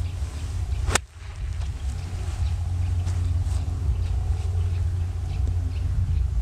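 One full pitching-wedge shot: a single sharp click of the iron's clubface striking the golf ball about a second in, over a steady low rumble of wind on the microphone.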